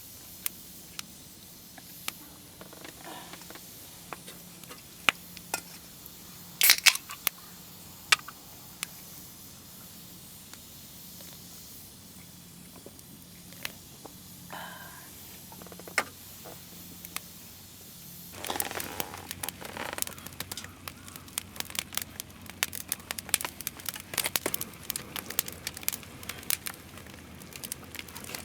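Campfire crackling with scattered sharp pops and a cluster of louder snaps about a quarter of the way in. About two-thirds of the way through it turns into a dense, continuous run of crackling and spitting.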